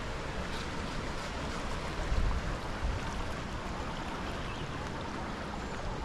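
Wind buffeting the microphone in uneven low gusts, the strongest about two seconds in, over a steady rushing hiss.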